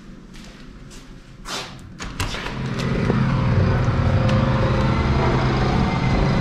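A thump, then from about two seconds in the steady, loud running of a construction machine's engine on an active building site.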